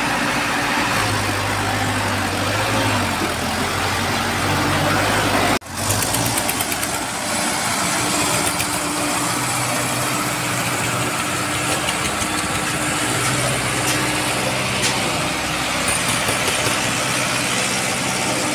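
Sonalika DI 750 tractor's diesel engine running under heavy load as it hauls a loaded soil trolley, its pitch shifting up and down as it manoeuvres. The sound drops out for an instant about five and a half seconds in.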